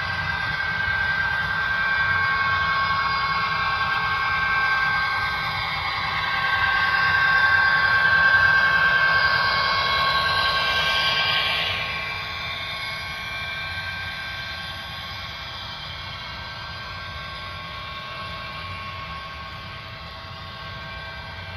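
Model Union Pacific SD70M locomotive running past with a steady high whine, then a string of loaded coal hopper cars rolling along the track. Loudest around eight to eleven seconds in, quieter after.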